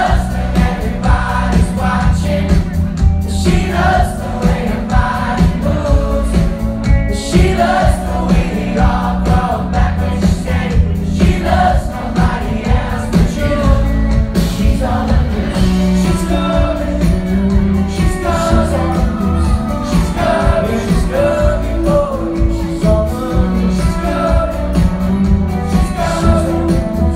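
Live pop-rock band playing with a male lead singer: electric guitars, bass, drums and keyboards. Recorded from the audience, with a heavy bass low end.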